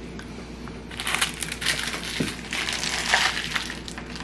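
Crinkling of a small plastic bag of candy beads being picked up and handled, in irregular crackly bursts starting about a second in.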